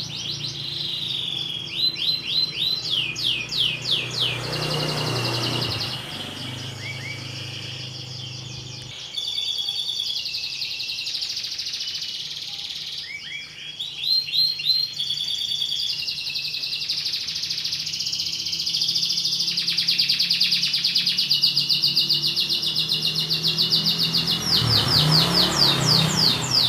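Domestic canary singing a long, almost unbroken song of rapid rolling trills, broken up by runs of quick falling whistled sweeps.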